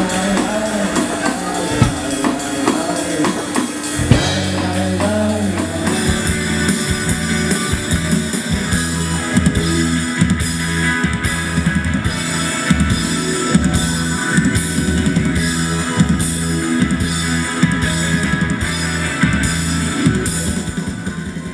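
Rock music from a band with drum kit and electric guitar; the drums settle into a steady beat with cymbal hits about six seconds in, and the music fades down near the end.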